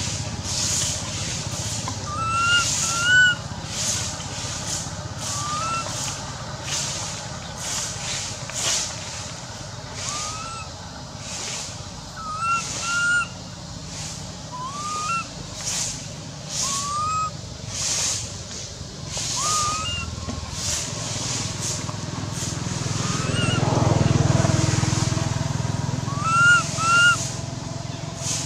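Infant long-tailed macaque giving short, rising coo calls every second or two, sometimes two in quick succession, as a baby monkey's crying. A vehicle passes as a low swell about three-quarters of the way through.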